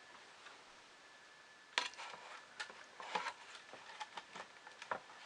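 Irregular light clicks and taps of small printer parts being handled and fitted by hand, the sharpest about two seconds in.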